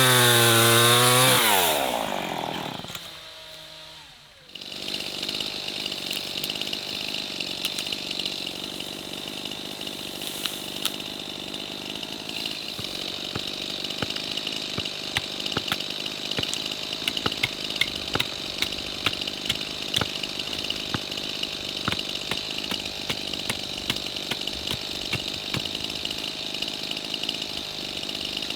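An engine revving up and down for about two seconds, then dying away. After a break, a steady high-pitched hum with many scattered sharp clicks runs on.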